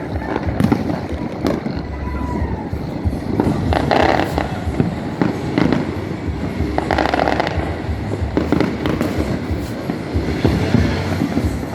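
Fireworks going off all around: a steady run of bangs and crackles over a continuous low rumble, with a couple of faint falling whistles.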